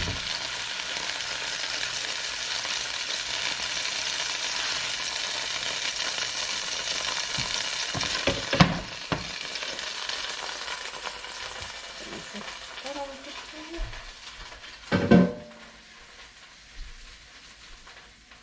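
A frying pan of chicken sizzling steadily, the sizzle dying away over the second half. A few sharp knocks break in, the loudest about fifteen seconds in.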